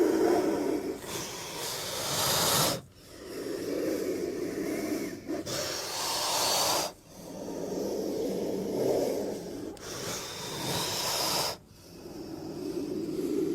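Velociraptor creature sound effects: raspy, hissing breaths and snorts, one take after another, each about four seconds long with a brief break between them.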